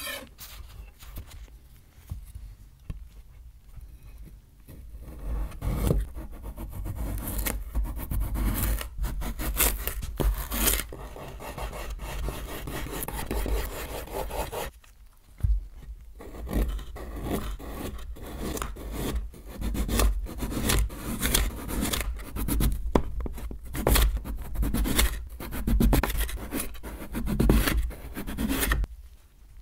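Chef's knife slicing raw sweet potato on a wooden cutting board: repeated cuts through the flesh, each ending in a knock and scrape of the blade on the board, with a short pause about halfway through.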